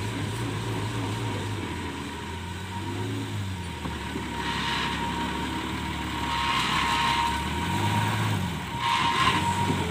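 Old bonneted lorry's diesel engine running and revving up and down a few times as the truck is manoeuvred, turning on a dirt road, with a few short hissing bursts in between.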